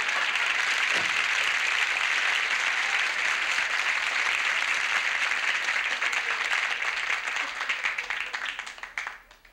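Studio audience applauding, dense and steady, thinning out and dying away near the end.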